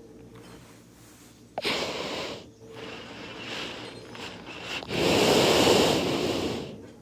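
A person breathing hard close to the microphone, with several heavy breaths. The last breath, starting about five seconds in, is the loudest and lasts about a second and a half.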